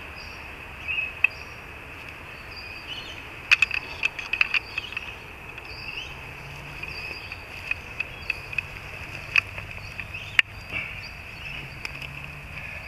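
A steady high insect chorus, with scattered clicks and knocks as stacked tree-stand climbing sticks are handled and set down on grass: a cluster of knocks a few seconds in and one sharp knock later.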